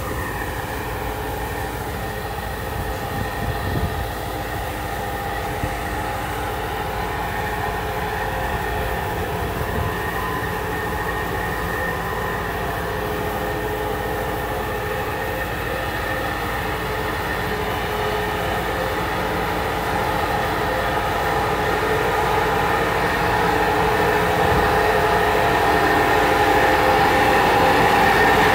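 Rice husk vacuum conveyor running: its blower gives a steady drone with several steady whining tones, getting louder toward the end.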